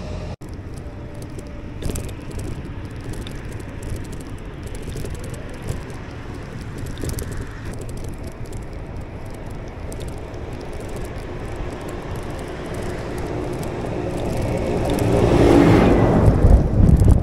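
A tractor driving past on a farm road. A steady low rumble of engine and tyres grows louder over the last few seconds as it comes close.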